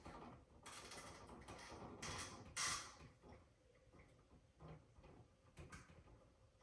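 Faint handling noises of hands working electrical wires at a wall switch box: rustling and scraping for a couple of seconds, loudest about two and a half seconds in, then a few light clicks and taps.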